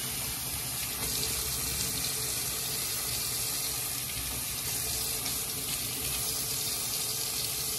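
Kitchen faucet running in a steady stream into a stainless steel sink, splashing over a gutted fish being rinsed out by hand.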